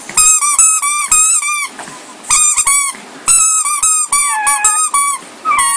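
Newborn puppy squealing in quick runs of short, high-pitched cries, several a second, broken by brief pauses; in the later runs a few cries bend downward in pitch.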